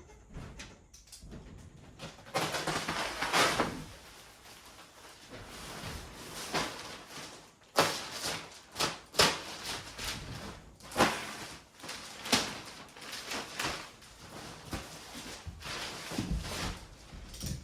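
Handling noise: a scraping rustle about two seconds in, then a run of separate sharp knocks and thuds.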